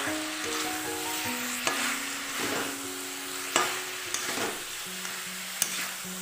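Chicken pieces sizzling in a metal pot as they are stirred and turned with a metal spoon, which scrapes and knocks against the pot a few times. The chicken is being dry-fried with ground spices and no water.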